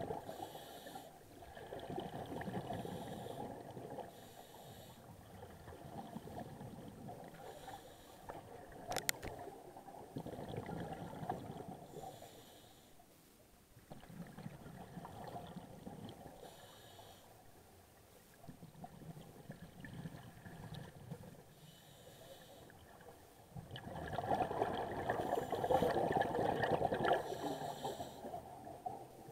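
Scuba divers breathing through their regulators underwater: a short hiss of inhaled air every couple of seconds, alternating with the gurgling rumble of exhaled bubbles, which are loudest near the end. A single sharp click about nine seconds in.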